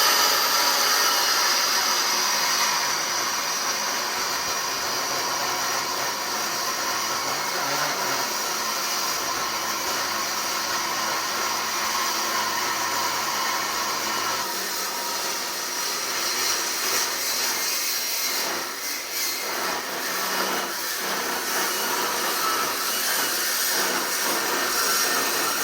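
Milwaukee circular saw with a metal-cutting blade cutting through heavy 10-inch steel pipe: a steady, loud high-pitched whine and grinding. The sound shifts a little past the middle of the cut, with some uneven catches.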